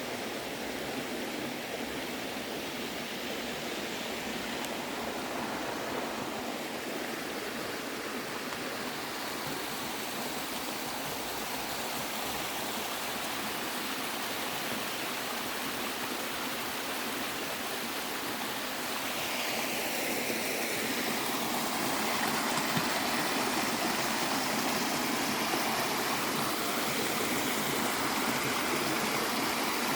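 Running water rushing steadily, like a stream over rocks, growing a little louder about twenty seconds in.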